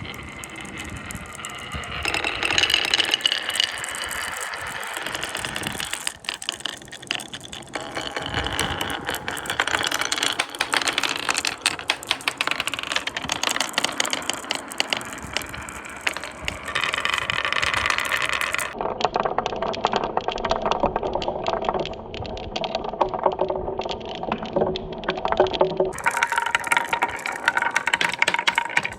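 Balls rolling and clattering down marble-run tracks: a dense, rapid rattle of small clicks and knocks. Its character changes abruptly several times as the run changes.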